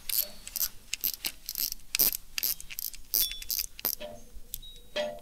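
Small metallic clicks and taps, a few a second and irregular, as the parts of a spinning fishing reel are fitted together by hand.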